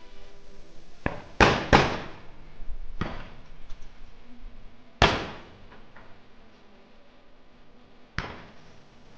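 Shotgun shots at an Olympic trap range, each ending in a short echo: a quick pair of shots about a second and a half in, a single shot about five seconds in and another near the end, with fainter shots from farther off in between.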